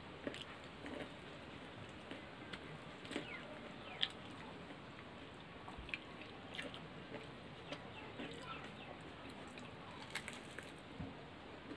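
Faint eating sounds of two people eating by hand: chewing and slurping Maggi noodles and biting into a samosa, scattered small clicks, smacks and crackles, the sharpest about four seconds in.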